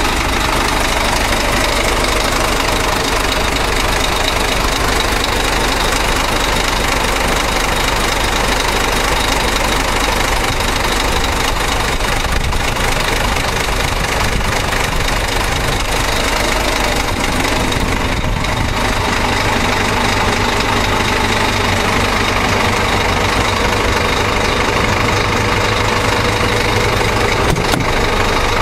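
Ford Ranger pickup driving on a dirt road, heard from inside the cab: the engine running steadily under a loud, even rush of tyre and road noise from the unpaved surface.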